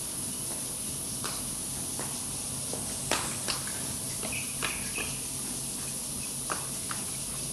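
Steady high-pitched insect buzzing, with a handful of sharp knocks scattered irregularly through it and two brief faint chirps near the middle.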